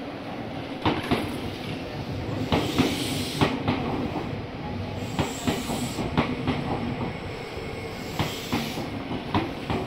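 Nankai 6000 series stainless-steel electric train rolling slowly into the platform to stop, wheels clacking over rail joints in pairs about every second over a steady running rumble, with short spells of hiss.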